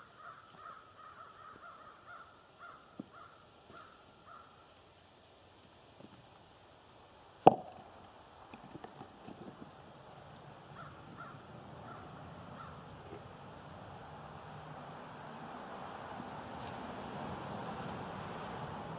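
Stone knocking on stone once, sharp and loud, about seven and a half seconds in, as a rock is set down on a stacked cairn. A bird calls in a run of short repeated calls in the first few seconds and a few more later, and a steady rushing noise grows louder over the second half.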